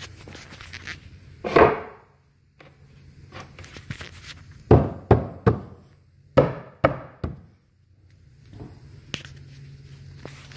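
A hand knocking on wooden stair treads. There is one thud about a second and a half in, then two quick groups of three knocks around the middle.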